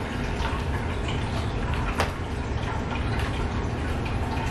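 Duct tape and clothing rustling as someone taped to a chair struggles to free her arms, with faint crackles throughout and one sharp click about two seconds in.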